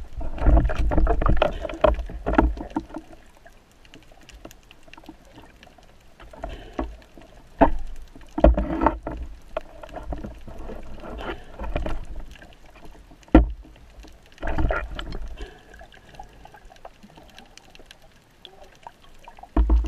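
Water sloshing and bubbling around a spearfisher's camera as it moves at the surface and underwater, in irregular surges, with a few sharp knocks of gear, the loudest about thirteen seconds in.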